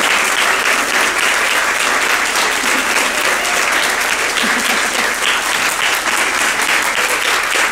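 Audience applauding, a dense steady clapping from a crowd of people, with individual claps standing out more near the end.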